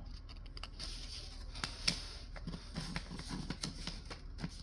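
Pokémon trading cards being handled and slid past one another: faint rustling with a scatter of light clicks.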